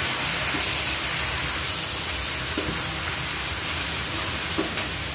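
Food stir-frying in a pan, a steady sizzling hiss, with a couple of faint taps.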